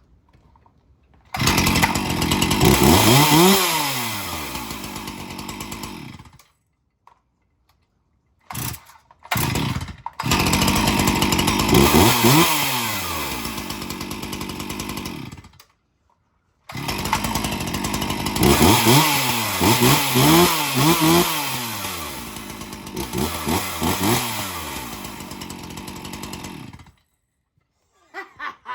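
Two-stroke gas chainsaw running in three spells, revved up and back down several times in each, with a couple of short blips between the first two; each spell cuts off abruptly.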